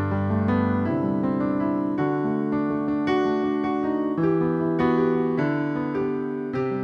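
Background music: a gentle electric piano playing held chords and notes that change every half second or so.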